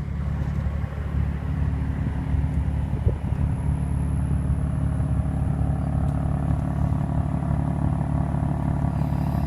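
Car engine idling steadily, a low even hum, with a soft knock about three seconds in.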